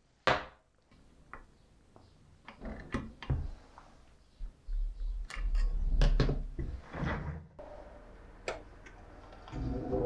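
Hands handling and fitting the parts of a sliding carriage on steel rods: sharp knocks and clicks of block housings, a star knob and a metal tool set down on the bench, with one loud knock just after the start and a cluster of knocks in the middle. Near the end a wood lathe starts running with a steady hum.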